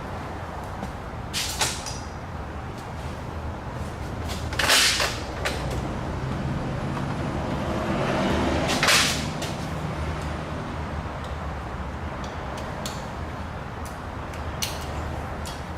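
Hand-tool work on a broken exhaust manifold bolt snapped off in the cylinder head: a steady low hum with scattered sharp clicks and two short hissing bursts, about five and nine seconds in.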